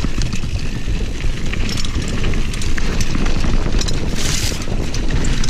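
Mountain bike rolling down a rough dirt trail: wind buffets the camera microphone over the rumble of the tyres and the rattle of the bike on the bumps, with a brief hiss about four seconds in.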